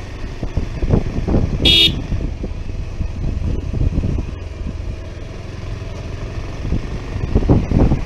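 Wind buffeting the microphone of a moving Bajaj Pulsar 150 motorcycle, with a low rumble from the ride, and one short horn toot about two seconds in.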